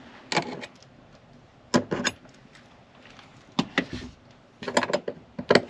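Scattered, irregularly spaced sharp clicks and light clinks of a small metal roller-shade mounting bracket and a cordless drill being handled and positioned under a cabinet; the drill motor is not run.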